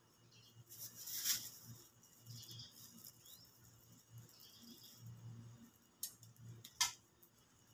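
Faint rustling and crackling of a plastic bag and date palm fronds as dates are picked by hand, with a louder rustle about a second in and two sharp clicks near the end.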